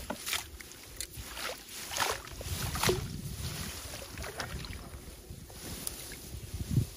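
Water splashing and sloshing, with a handful of sharp splashes in the first three seconds, then a quieter lapping. There is a low wind rumble on the microphone throughout.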